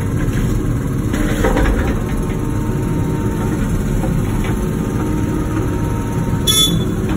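Wacker Neuson ET 145 excavator's diesel engine running steadily under work, with rough scraping and knocking about a second or two in as rock is moved. A short sharp high-pitched click or clank comes near the end.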